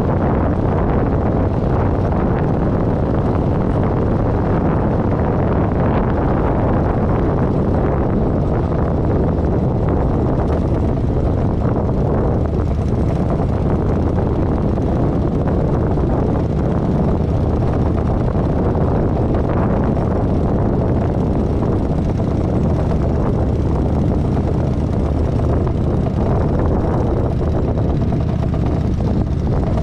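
Kawasaki Vulcan 900's V-twin engine running steadily while the motorcycle is ridden along at a gentle pace.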